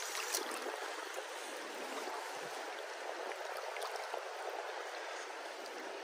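Shallow river current running over a rocky bed: a steady, even rush of flowing water with a few faint ticks.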